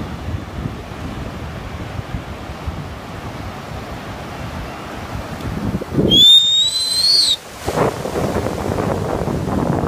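Ocean surf breaking and washing up the beach, with wind buffeting the microphone. About six seconds in, a loud, shrill, whistle-like tone rises, holds for about a second and stops.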